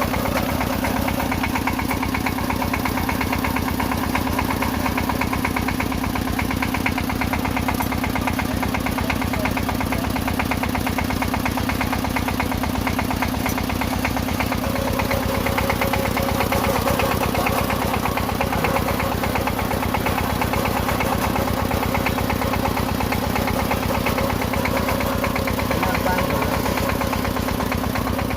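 Engine of a soil-test boring rig running steadily at an even speed.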